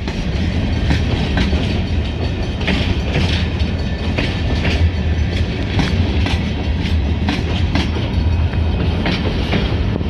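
Escanaba & Lake Superior Railroad freight train rolling past: a steady low rumble, with wheels clacking over the rail joints at an uneven beat of one or two clacks a second.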